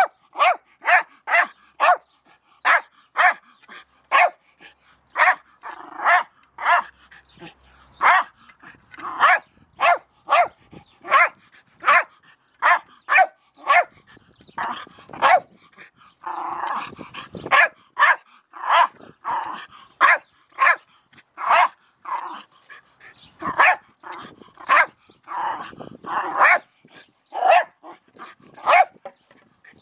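Jack Russell terrier barking over and over in short, sharp barks, roughly one or two a second, with a few longer, busier stretches where the barks run together.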